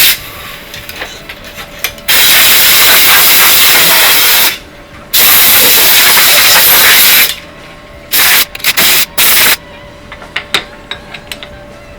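Compressed-air blow gun at a lathe, hissing in loud blasts: a brief one, two long ones of about two seconds each, then a run of short puffs. A quieter steady hum from the machine runs between the blasts.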